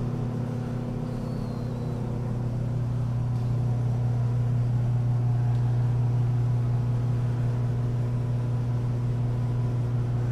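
Steady mechanical hum of shop machinery: a low drone with faint overtones and a light hiss, getting slightly louder over the first few seconds.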